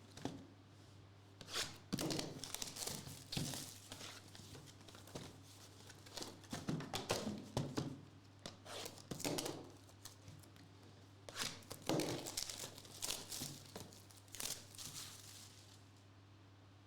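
Trading card pack wrappers being torn open and crinkled by hand, in three spells of sharp rustling and tearing with short pauses between.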